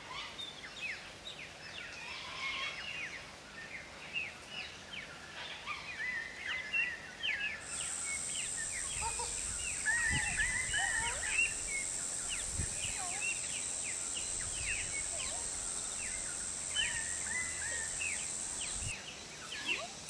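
Outdoor bird chorus: many birds chirping and calling with quick short notes. From about a third of the way in until near the end, a steady high-pitched drone runs beneath them, then stops abruptly.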